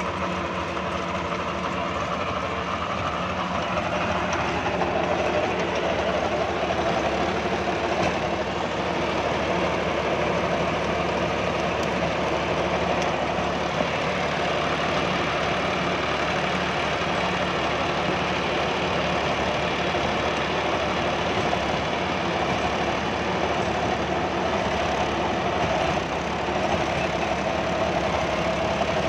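John Deere 5075E 4x4 tractor's three-cylinder diesel engine running under load, driving a rotary tiller through the soil. The engine note rises a little about four seconds in, then holds steady.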